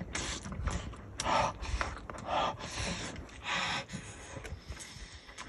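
A person with a mouthful of steaming-hot food, huffing short breaths in and out through an open mouth to cool it. Short clicks of chewing and lip-smacking come between the breaths.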